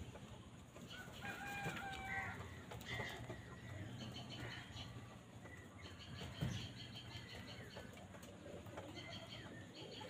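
A flock of house crows feeding, with wing flaps and scattered short bird calls over a low steady hum. A single sharp thump comes about six and a half seconds in.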